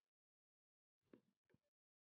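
Near silence, broken by two short faint snatches of a voice about a second in.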